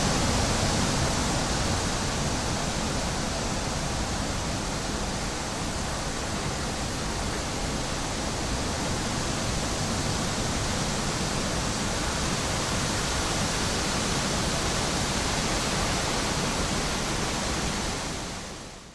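Wind blowing through trees: a steady, even rushing that fades out near the end.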